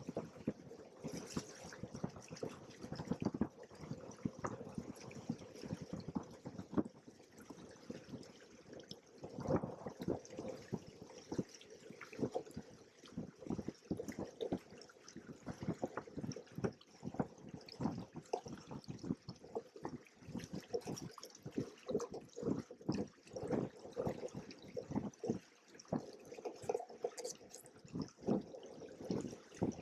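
Water slapping and splashing against the hulls of a Hobie Cat 16 sailing catamaran under way, in quick irregular splashes of uneven strength.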